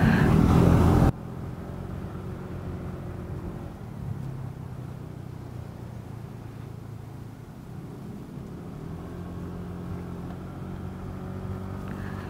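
Motorcycle engine running steadily at low revs. A loud rush of wind and engine noise in the first second cuts off abruptly, leaving a quieter, even engine hum.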